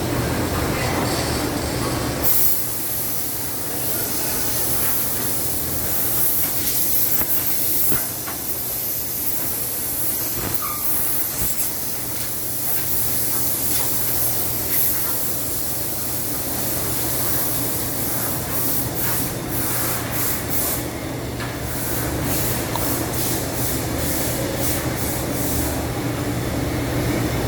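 Robotic nailing and drilling cell running: a steady machine hum under a constant compressed-air hiss, with a quick run of short, evenly spaced air bursts in the second half.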